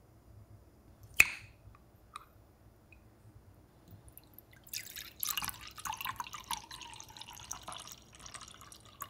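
A sharp clink about a second in, then orange juice pouring from a glass bottle into a glass mug for about four seconds.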